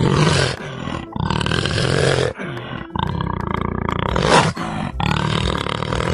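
Leopard roaring: about four drawn-out roars in a row, each roughly a second long, the loudest a little over four seconds in.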